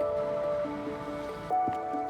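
Background music: a gentle melody of held notes, with faint light ticks and drips mixed in.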